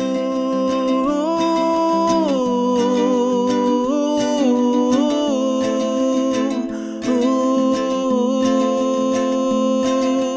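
Background song with plucked-string accompaniment and a held, wordless melody line that steps and glides in pitch.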